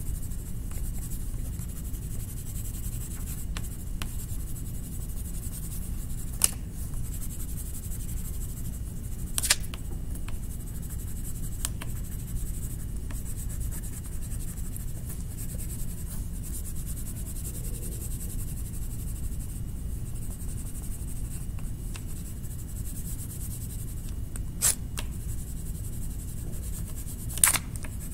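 Colouring strokes on paper, a steady faint scratchy rubbing as sky blue is filled in around the picture. A few sharp clicks come through, the loudest near the end.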